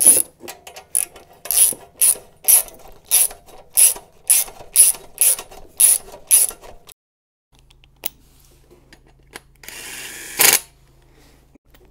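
Socket ratchet wrench clicking as a crash bar bolt is run in: about a dozen back-strokes at roughly two a second. About ten seconds in, a cordless DeWalt impact driver runs briefly on the bolt, for under a second.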